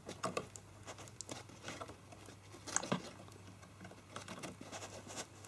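Faint clicks and crinkling from handling the flexible plastic case of a Mushkin RAM kit, with one sharper click about three seconds in.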